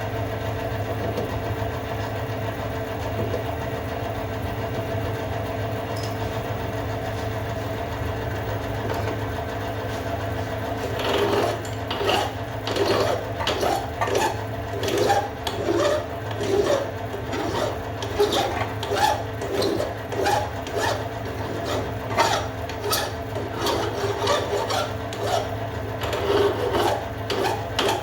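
Hand file rasping back and forth on a small metal part, in even strokes about two a second, starting about a third of the way in. A steady machine hum runs underneath.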